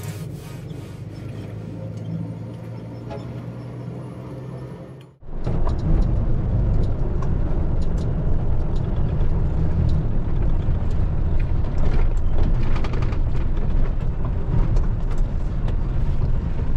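Background music for about five seconds, cut off abruptly, then a truck on the road: its engine and road noise run steadily and louder.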